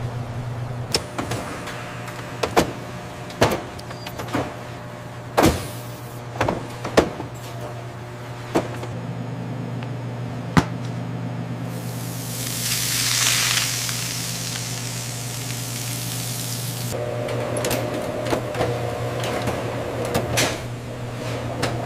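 Commercial kitchen sounds: a steady low equipment hum with scattered sharp clicks and knocks of food being handled on steel pans and counters. About twelve seconds in, a loud hiss lasts roughly five seconds.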